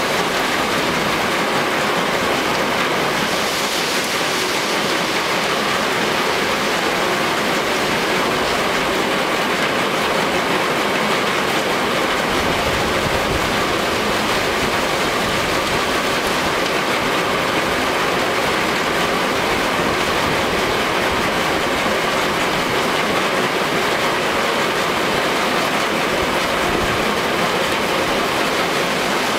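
Stone-crushing plant running: the crusher, conveyor belts and screen working rock, a loud, steady mechanical din with no breaks.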